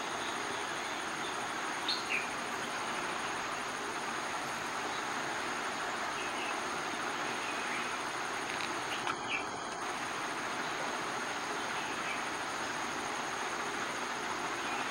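Steady outdoor background hiss with two constant high-pitched tones over it, and a few short faint chirps about two seconds in and again around nine seconds.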